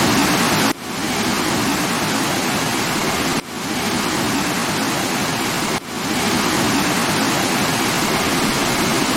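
Falling water of a waterfall, rushing as a dense, steady noise. It dips briefly about a second in, at about three and a half seconds and near six seconds, then carries on at much the same level.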